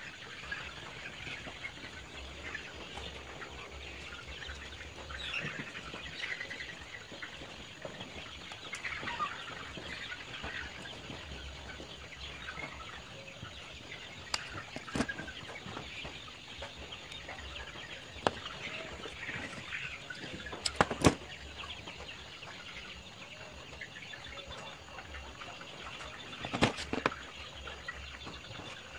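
Chickens clucking and calling throughout, with a few sharp clicks, the loudest a little past the middle and again near the end.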